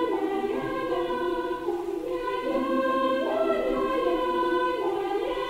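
Children's choir singing a Balinese song a cappella. Several voice parts hold sustained chords that shift to new notes every second or so.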